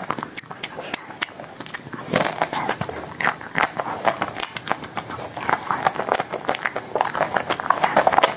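Close-up eating sounds of a chocolate-coated ice cream bar with chopped nuts: the hard chocolate shell crackling and crunching as it is bitten and chewed, with wet mouth clicks and smacks. A dense run of sharp clicks that grows busier about two seconds in.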